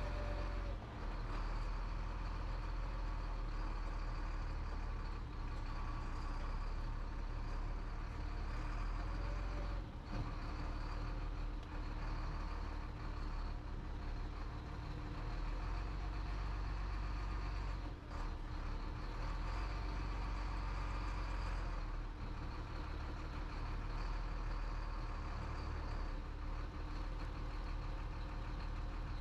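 Chenglong truck's diesel engine running steadily at low revs, heard from inside the cab while the truck slowly reverses a loaded flatbed trailer. There are a few brief knocks along the way.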